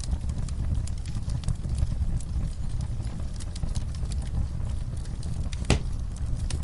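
Wood fire burning in a fireplace, crackling with irregular snaps over a low rumble of the flames, and one sharper pop near the end.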